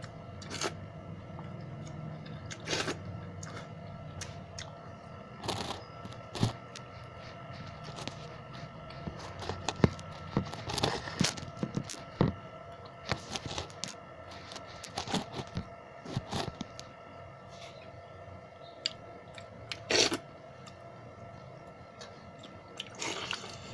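Fingers mixing and scooping watered rice in steel bowls while he eats by hand, heard as irregular small clicks, scrapes and chewing sounds over a faint steady hum.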